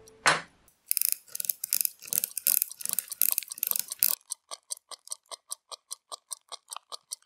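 Pocket watch being hand-wound at the crown, a dense run of ratchet clicks, then the watch ticking evenly at about five ticks a second: the repaired watch is running.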